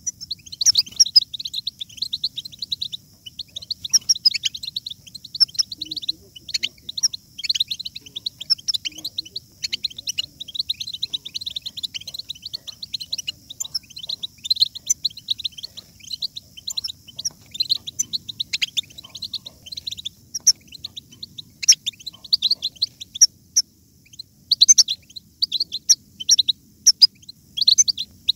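European goldfinches twittering and singing together: a dense, unbroken run of quick high chirps and trills.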